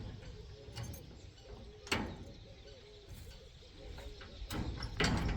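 A dove cooing, a run of soft low repeated notes over and over, with a sharp tap about two seconds in and louder noise near the end.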